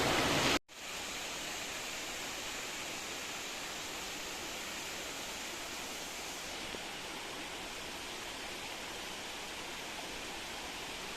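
Steady rush of water from a waterfall, an even hiss. It is louder for the first half-second, then drops off abruptly and carries on softer and unchanging.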